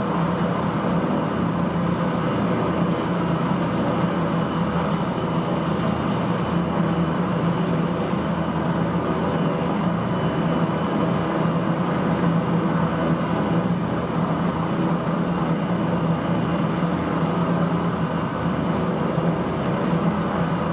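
Leonardo AW169 helicopter's twin turboshaft engines and rotors running steadily at flight idle on the pad, with a constant low hum, ready for takeoff. Heard through a building's window.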